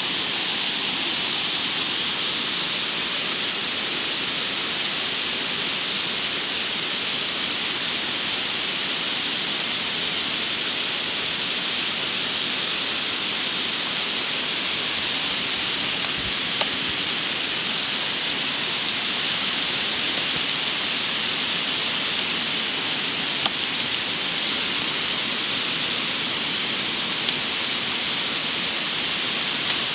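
Steady rush of water pouring over a low concrete weir into a stream, an even hiss with no change throughout.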